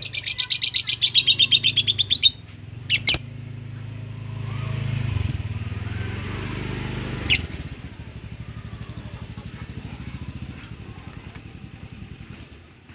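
Lovebirds giving a fast run of shrill chirps for about two seconds, then single sharp calls about three and seven seconds in. A low engine hum runs underneath, growing louder toward the middle and then throbbing and fading.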